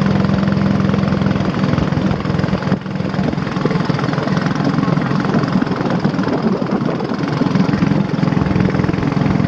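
Motorboat engine running steadily at speed, with water rushing along the hull and wind; it dips briefly about three seconds in.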